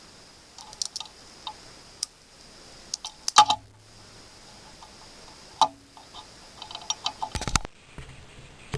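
Wire strippers and small plastic plug parts clicking and snapping as the insulation is stripped from the live and neutral wires of a mains cable: scattered sharp clicks, two louder snaps about a third and two thirds of the way in, and a short scraping noise near the end.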